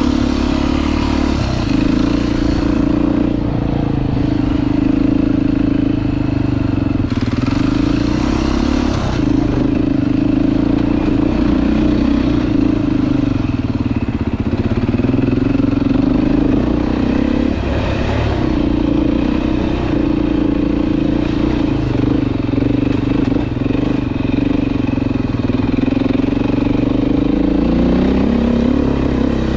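Dirt bike engine running under way, its pitch wavering up and down with the throttle and dipping briefly about three times.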